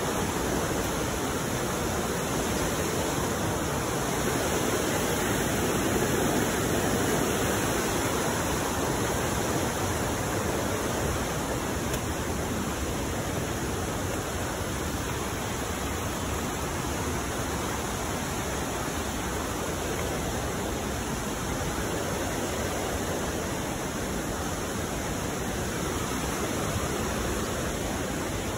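Steady rushing of flowing stream water, an even hiss with no breaks, swelling slightly a few seconds in.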